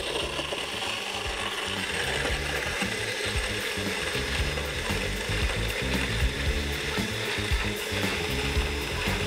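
Countertop blender running at speed, blending whole peeled tomatoes, mint leaves and ice into juice, a dense steady whirr with irregular low knocking underneath.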